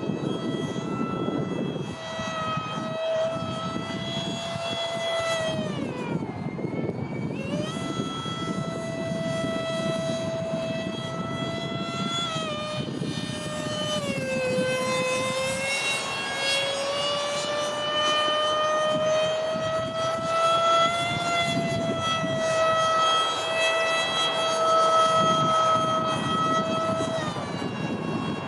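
Six-blade electric ducted fan of a radio-controlled foam Eurofighter model jet whining in flight. Its pitch dips about six seconds in and again about fourteen seconds in, and otherwise holds fairly steady. Wind rumbles on the microphone.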